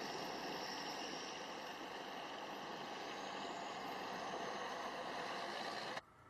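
Steady running noise of a large vehicle, with no rhythm or pitch change; it begins abruptly and cuts off suddenly about six seconds in.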